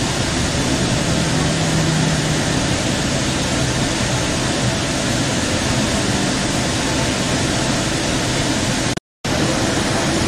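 Steady rumble and hiss of a Central Link light-rail train heard from inside the moving car. The sound cuts out completely for an instant about nine seconds in.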